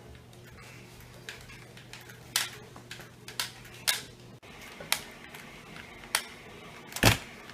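A handful of light clicks and taps at uneven intervals over a faint low hum, with a heavier knock near the end.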